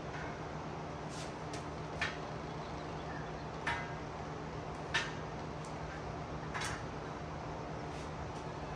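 Steel parts of a bolt-together pit lift clinking a few times, with about four short sharp metal clicks as the studs are started into the pivot tube.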